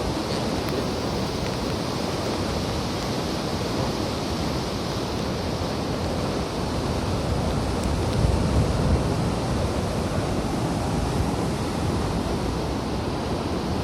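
Steady roar of rushing water in a flood, without breaks, slightly louder about eight seconds in.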